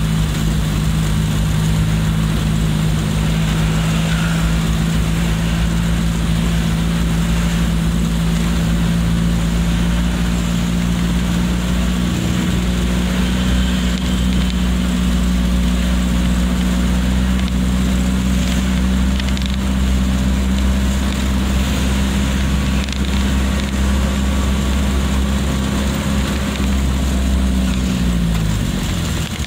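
Car engine and road noise heard from inside the cabin while driving: a steady low engine drone at constant speed, whose pitch drops and fades out about a second before the end as the engine comes off the throttle.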